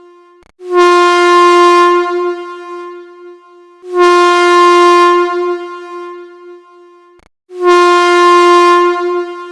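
Air horn blowing three steady single-tone blasts about three and a half seconds apart. Each starts sharply, holds for about a second, then dies away.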